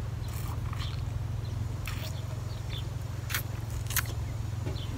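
Wet mouth sounds of people sucking and licking ice-cream lollies: several short smacking clicks, the loudest about four seconds in, over a steady low hum.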